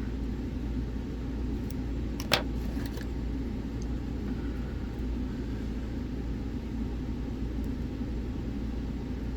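Steady low rumble in the background, with a single sharp click a little over two seconds in and a few faint clicks around it, from a Schlage Primus lock being picked.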